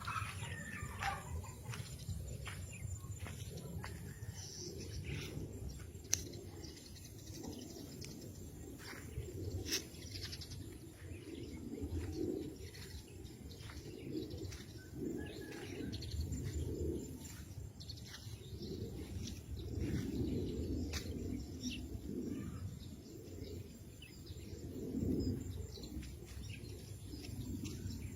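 Doves cooing again and again in soft low phrases, over a steady low rumble, with scattered faint clicks.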